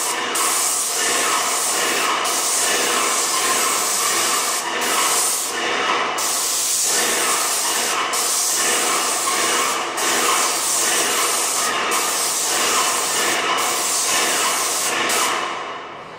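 Paint sprayer hissing as it sprays paint onto a wall, with brief breaks about every two seconds, stopping near the end.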